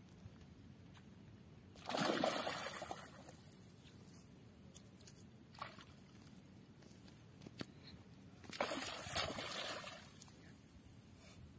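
A hooked fish thrashing at the surface of shallow water, splashing hard twice, each burst lasting about a second, with a few small drips and plops in between.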